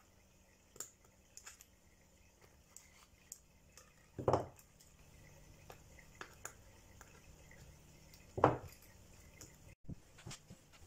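Small aluminium scales clinking and small pliers clicking as the scales are handled and linked together, with two duller knocks about four and eight seconds in.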